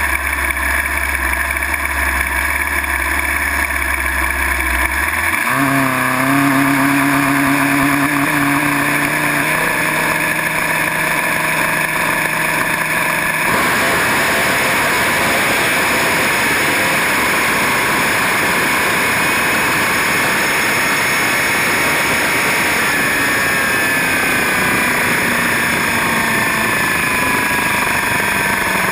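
Drag-racing motorcycle engine, heard from on board: idling steadily at the start line, then held at steady higher revs from about five seconds in. About halfway through the sound jumps suddenly to a loud rush of engine and wind as the bike runs down the strip, and its pitch falls in the last few seconds.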